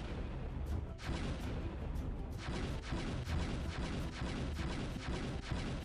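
Background music for an advertisement, with a heavy beat of dense, repeated drum hits over a strong bass.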